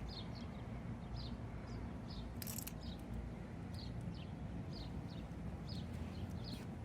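A small bird chirping repeatedly, short high descending notes about once or twice a second, over a steady low background rumble.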